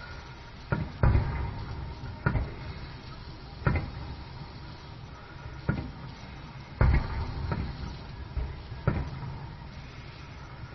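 Aerial fireworks bursting: about eight sharp booms at uneven intervals, each trailing off in a low rumble.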